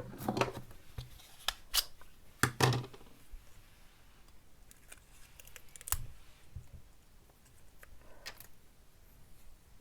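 Handling sounds as a notice is taken off a flashlight: a quick series of sharp clicks and scrapes in the first three seconds, a single click about six seconds in, and a short rustle near eight seconds.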